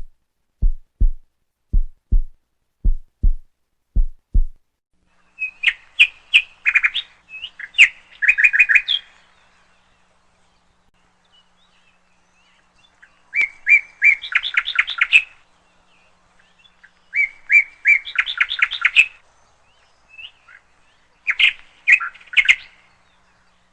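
Low double thumps in a heartbeat rhythm, about one pair a second, for the first four seconds; then a bird singing in bursts of rapid, repeated chirps, several phrases a few seconds apart.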